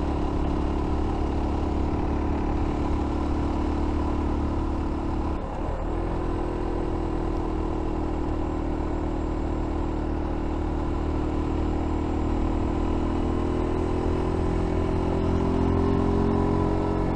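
F.B Mondial Pagani 300 motorcycle engine running at a moderate road speed. The note breaks briefly about five and a half seconds in, as at a gear change, then slowly rises in pitch as the bike gently accelerates.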